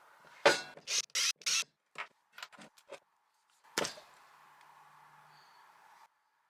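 Parts of a cordless angle grinder being handled during disassembly: a string of sharp clicks and short scrapes, with a loud knock near the end.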